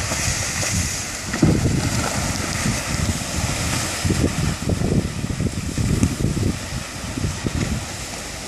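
Wind buffeting the microphone in uneven gusts, over a steady hiss from the broken river ice moving downstream during the spring ice-out.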